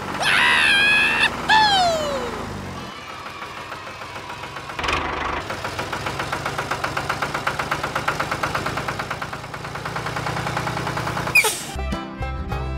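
Tractor engine chugging steadily at about five beats a second. Before it come a few high squeaky cries and a falling whistle, and near the end a short scraping clatter.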